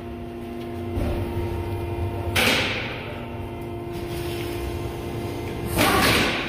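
Cloth rustling and rubbing against a handheld phone's microphone as a sleeve brushes it, with a brief scrape about two and a half seconds in and a louder rub near the end, over a steady low hum.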